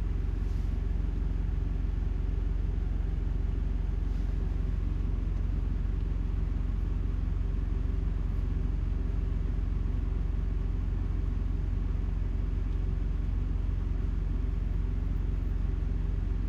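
Steady low mechanical rumble and hum, unchanging throughout.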